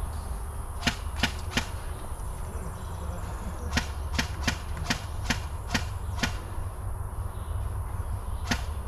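Airsoft gun fired in single shots, each a sharp snap: three about a second in, a quick run of about seven between four and six seconds in, and one more near the end, over a steady low rumble.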